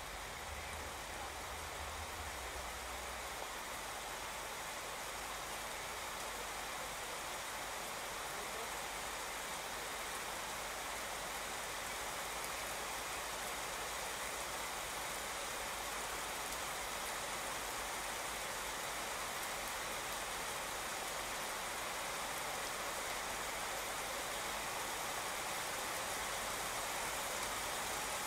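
Heavy rain falling on a wet asphalt street, pavement and grass: a dense, even hiss that grows slowly louder.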